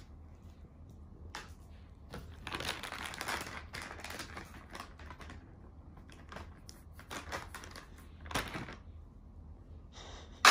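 Crinkling and rustling of a plastic diaper packet and disposable diaper being handled, with scattered light clicks and taps, busiest a couple of seconds in and again near the end. It finishes with one sharp, loud crackle.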